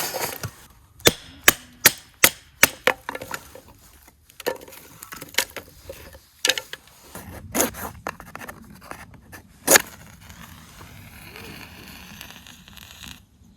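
Firewood being split and broken: a quick run of sharp wooden knocks, then scattered cracks and splintering, and a softer rustle near the end.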